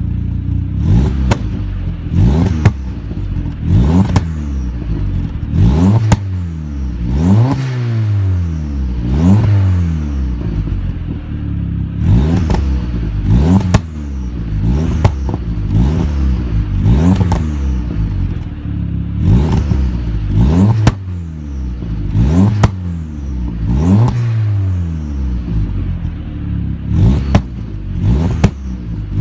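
Audi TT 225's turbocharged 1.8-litre four-cylinder engine blipped over and over, about every second and a half, through a de-catted Milltek exhaust with a 3-inch downpipe. Each rev falls back with pops and crackles on the overrun: unburnt fuel from slight over-fuelling igniting in the exhaust.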